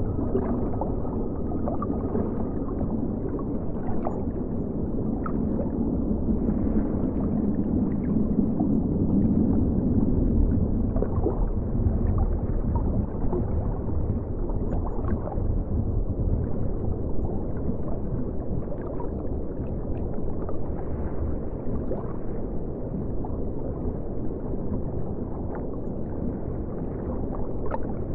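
River water flowing, heard as a steady, muffled low rushing with gurgles and scattered faint clicks.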